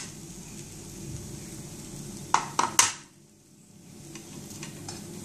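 Paratha frying in ghee on a tawa with a low steady sizzle. Three quick utensil clicks against the pan come about two and a half seconds in, then a short lull before the sizzle returns.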